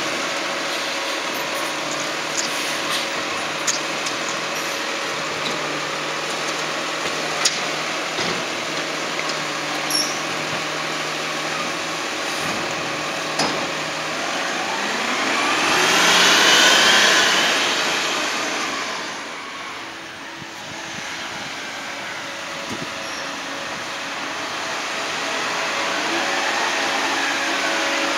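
Garbage truck engine running steadily, with a few sharp clicks, then a louder rise with a climbing whine about halfway through as it pulls away. It falls off, then slowly grows louder again near the end.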